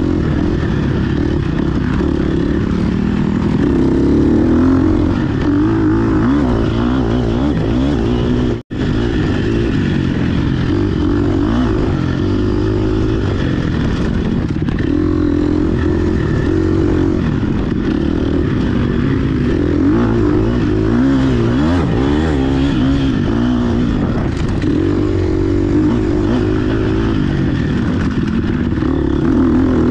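GasGas EX 250F four-stroke single-cylinder dirt bike engine running hard on a trail ride, its pitch rising and falling as the throttle is opened and rolled off. The sound cuts out for a split second about nine seconds in.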